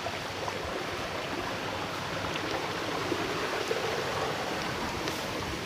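Small stream running, a steady even rush of flowing water.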